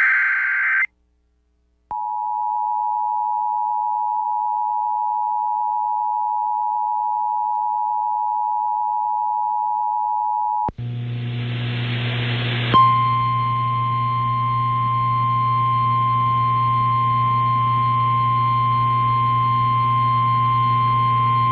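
Emergency Alert System tones: the tail of the SAME digital header bursts, a second's pause, then the two-tone EAS attention signal held steady for about nine seconds. It gives way to a hissy, humming relayed weather-radio feed, where the steady single-pitch NOAA Weather Radio warning alarm tone sounds, which signals a warning such as this flash flood warning.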